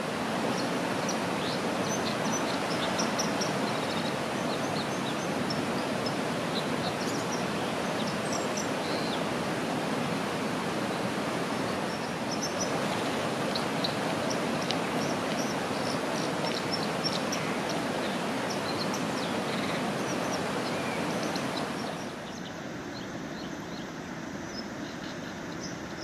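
White-throated dipper singing a clear, bright, clinking song of short high notes over the steady rush of a fast-flowing stream. About 22 s in the song stops and a quieter rush of water remains.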